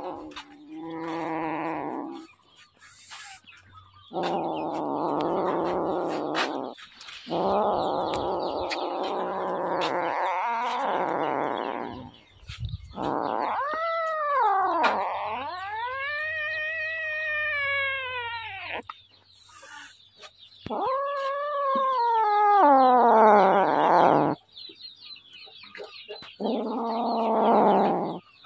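A cat yowling: a string of about seven long, drawn-out calls with short gaps. Some are rough and harsh, others smooth and rising then falling in pitch.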